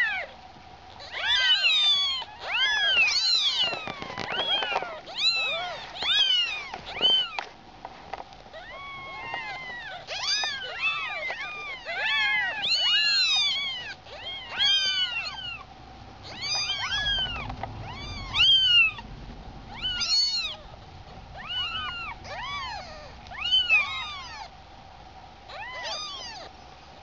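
Newborn kittens mewing: many short, high-pitched, squeaky cries, often overlapping, coming almost without pause. A faint steady hum runs underneath.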